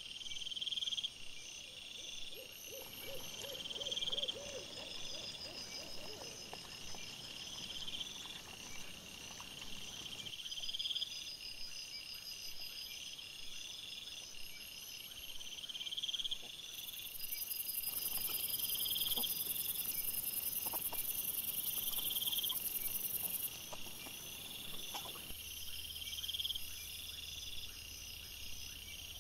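Night insects chirping in a steady repeating rhythm, with a higher buzzing that sets in for a few seconds past the middle. Faint rustles and clicks come from wild boar foraging on the ground.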